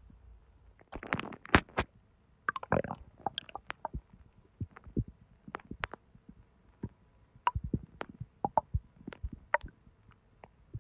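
A person's stomach and intestines gurgling, with the digestion stirred up by hot sweetened tea. A burst of bubbling gurgles and short squeaks comes about a second in, followed by scattered short pops and squelches.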